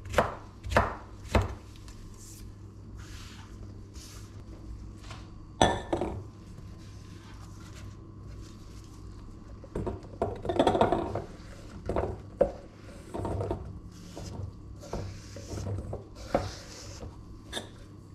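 Kitchen knife chopping eggplant on a wooden cutting board, a few quick strokes at the start. Later, cubed eggplant is scraped and pushed off the board into a metal pot, a loud rustling scrape about ten seconds in, with scattered knocks of the board and pieces against the pot.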